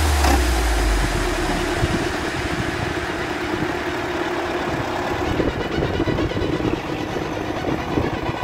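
Belarus MTZ-82 tractor's four-cylinder diesel engine running steadily while working a front loader, its note growing a little stronger about five seconds in as the tractor pulls away.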